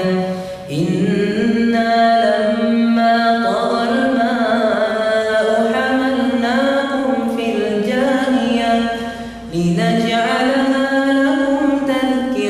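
A man's solo Quran recitation, chanted in long melodic phrases, with two short breaks for breath, one just under a second in and one about nine seconds in.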